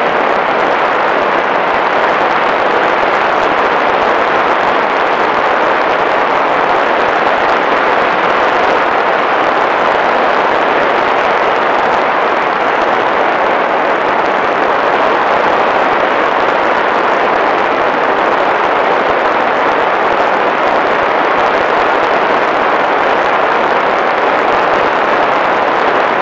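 Loud, steady rush of airflow and propeller noise picked up by a camera carried aboard a small fixed-wing UAV in flight, with no clear engine pitch standing out.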